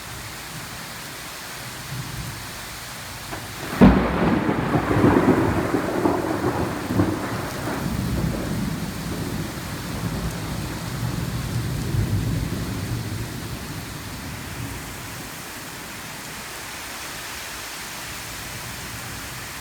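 Steady heavy rain, with a sharp thunderclap about four seconds in that rolls into rumbling thunder, slowly fading back to the rain over about ten seconds.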